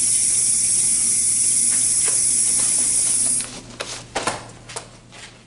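Water running from a bathroom sink faucet over hands, a steady hiss that stops about three and a half seconds in. A few light knocks follow.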